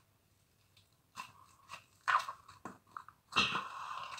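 Fingers squishing and poking a butter slime mixed with clay and crunchy clay in a plastic tub, making soft crackles and squelches. Quiet for about a second, then several short crackles, then a longer stretch of it near the end.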